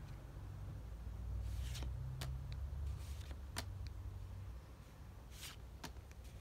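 Pokémon trading cards being flicked through by hand one at a time: a couple of soft sliding swishes and several light snaps of card stock against card, over a low handling rumble.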